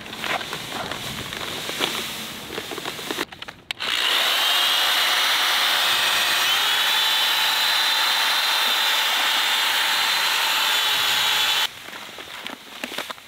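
Rustling of a paper sand bag, then a corded drill with a paddle mixer running steadily in a bucket of two-part epoxy for about eight seconds, stopping abruptly; after it stops, sand pours from the paper bag into the bucket.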